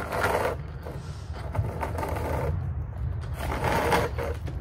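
Hot Wheels Mega-Wrex RC monster truck's electric drive motor and gears whirring as it tries to pull a wheelie on a concrete sidewalk. It runs for about two and a half seconds, stops briefly, then whirs again for about a second near the end.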